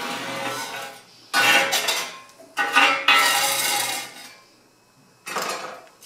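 Metal spatula scraping built-up soot off the underside of a wood stove's metal hotplate: about four rasping strokes of metal on metal, the last a short one near the end.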